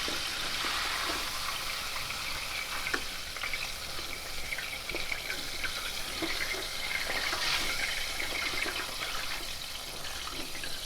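Breaded chicken thighs deep-frying in hot oil in an electric deep fryer: a steady sizzle with many small scattered crackles and pops.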